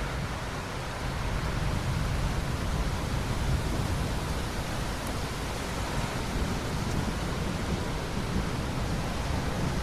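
Steady rain: an even, unbroken hiss with a low rumble underneath.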